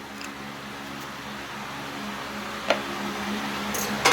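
Steady mechanical hum, like a shop fan, with a few light clicks as a pick works the old O-ring off the plastic oil filter housing cap; one sharp click about two-thirds of the way through and more near the end.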